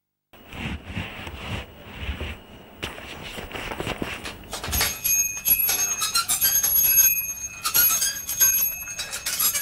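Bicycle bell rung again and again from about five seconds in, in quick ringing trills. Before that, uneven scuffing and rustling noise.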